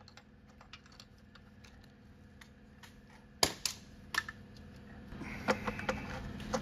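Scattered light metallic clicks and clinks of a socket wrench and a bolt being worked loose by hand on a car's starter mount, with a few sharper clanks about three and a half seconds in and more handling noise near the end.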